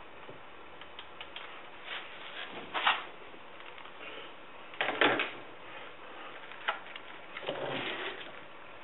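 Brush being dabbed and stroked over resin-wet fiberglass cloth in a mold. There are a few short scrubbing noises, the loudest about three and five seconds in, with a click and then a longer scrubbing near the end.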